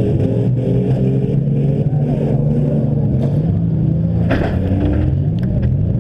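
Several demolition derby car engines running and revving, their pitches rising and falling, with one sharp crash about four seconds in.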